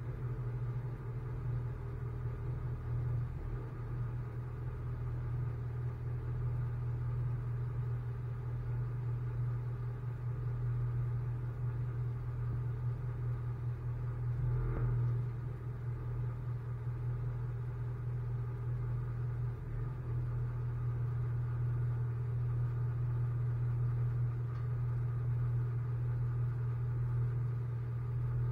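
Tow truck's engine idling while parked, a steady low hum.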